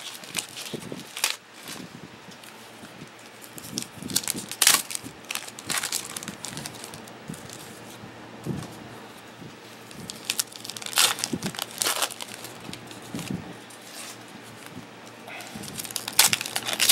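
Trading card packs of 2013 Panini Prestige football being torn open by hand, the wrappers crinkling and crackling in sharp clusters, loudest about four to five seconds in, around eleven to twelve seconds and near the end.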